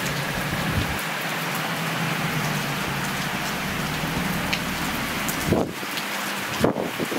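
Steady heavy rain falling on the yard and roofs, an even hiss, with a faint low hum underneath. A few muffled thumps come near the end.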